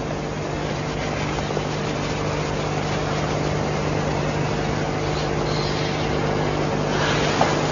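Steady rushing noise of a storm, slowly growing louder, over a low steady hum.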